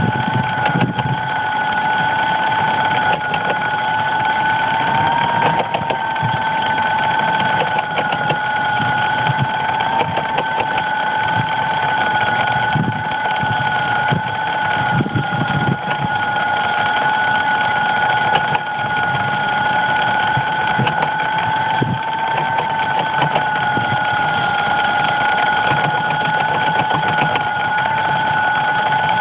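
DJI Phantom quadcopter's motors running steadily after the drone has crashed into dry grass, a continuous two-tone whine.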